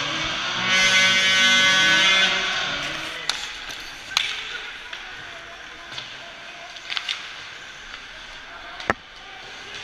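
Ice hockey game heard from rink-side: a loud, steady buzzing tone for about a second and a half near the start, then arena crowd noise with scattered sharp clacks and one loud crack near the end.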